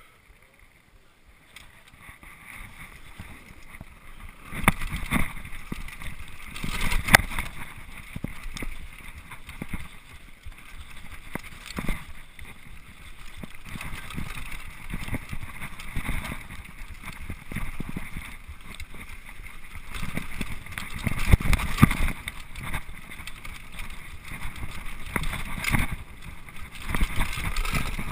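Downhill mountain bike ridden fast over a rough dirt track: wind rushing on the action camera's microphone with the rattle of the bike and tyres, quiet at first and building after a few seconds, with hard knocks now and then from bumps.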